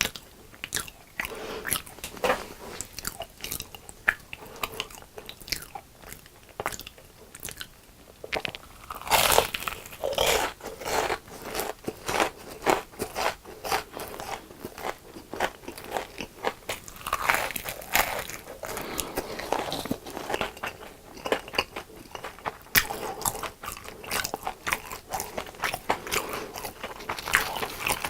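Close-miked biting and chewing of crunchy deep-fried food: a fast, irregular run of crisp crunches with chewing between them, getting louder about a third of the way in.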